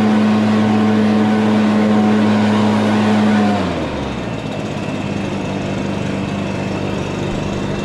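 Lawn mower engine running steadily, then winding down with a falling pitch about three and a half seconds in, leaving a quieter steady engine hum.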